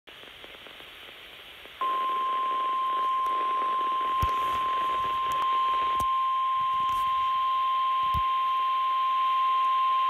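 Weather radio receiver hissing with static, then, about two seconds in, the NOAA Weather Radio 1050 Hz warning alarm tone comes on abruptly: one long, steady beep that announces a warning broadcast is about to be read.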